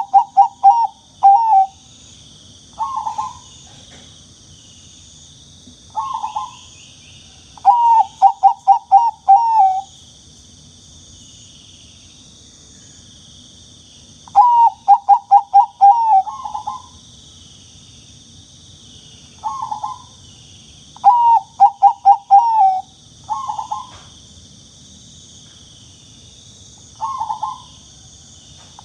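Zebra dove (Bangkok perkutut) cooing: loud phrases of quick, staccato coos, several notes each, repeated with pauses of one to several seconds, over a steady faint high hiss.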